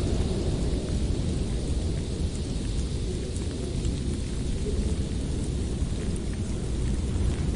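Blizzard wind: a continuous deep rushing noise with a hissing top that eases off mid-way and swells again near the end.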